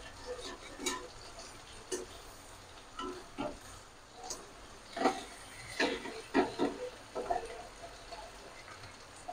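A metal spatula scraping and clinking against a kadai as prawns are stirred and turned in hot oil, with a faint sizzle underneath. There are several short clanks, closer together in the second half.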